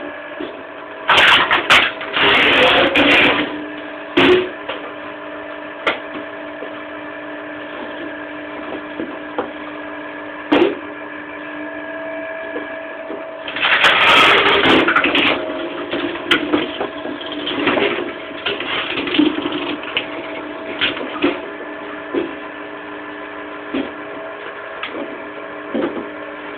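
Electric motor of a cone log splitter running with a steady hum while its threaded steel cone screws into wood blocks. Two loud spells of grinding and cracking, about a second in and again about halfway through, as blocks are driven onto the cone and split apart, with smaller cracks and knocks of wood between.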